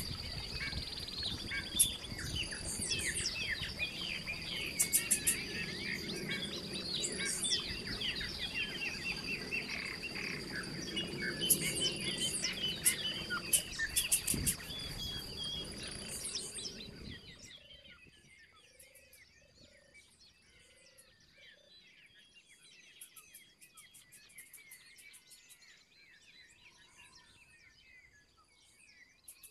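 Many birds chirping and singing over a steady high whine and a low rumble. About seventeen seconds in the whole sound drops away to faint, sparse chirping.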